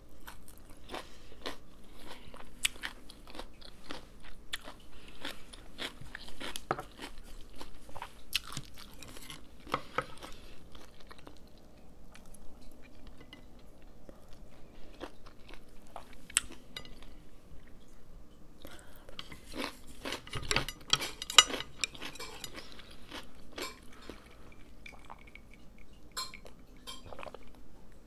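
A person chewing a mouthful of rice wrapped in a pickled perilla leaf close to the microphone: wet chewing with many small crunches and mouth clicks, busier for a few seconds about twenty seconds in.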